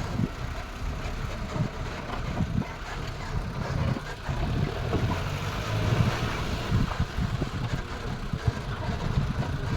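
A safari vehicle's engine running with a low rumble, broken by irregular knocks and jolts.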